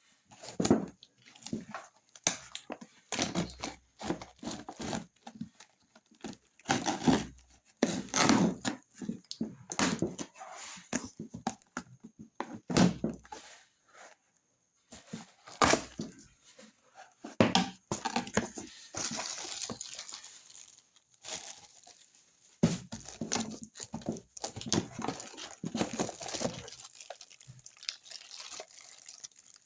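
Blender packaging being handled and opened: irregular rustling, crinkling and tearing of cardboard and plastic, with scattered knocks.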